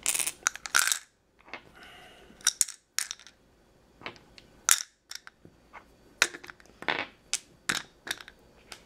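Polyhedral dice clicking against each other and against a clear plastic case as they are set into it one by one: a string of sharp, irregular clicks and clacks.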